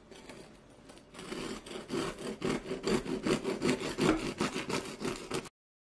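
Knife sawing back and forth through the crispy crust of a round jalapeño-cheddar loaf, a rasping crunch with each quick stroke. The strokes are faint at first, get louder from about a second in, and stop suddenly near the end.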